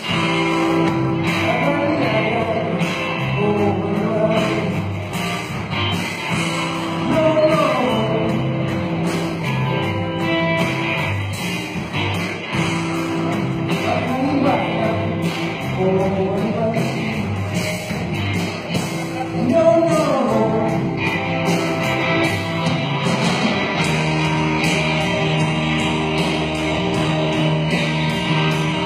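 Rock band playing live with electric guitars and drum kit, loud and continuous, in a large hall.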